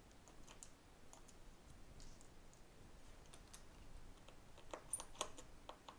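Faint, scattered small clicks and ticks of a precision screwdriver and fingertips on the parts of an opened iPhone 6S, with a few sharper clicks about five seconds in.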